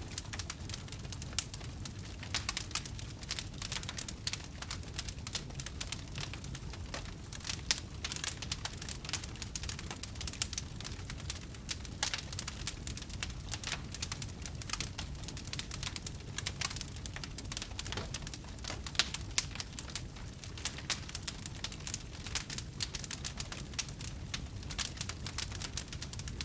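Wood campfire burning, with dense irregular crackles and snaps over a steady low rumble of the flames.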